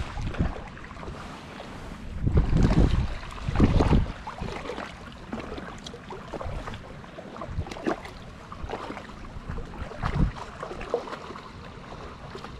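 Wind buffeting the microphone, with heavy low rumbling gusts about two and four seconds in, over a steady outdoor hiss broken by scattered small clicks and knocks.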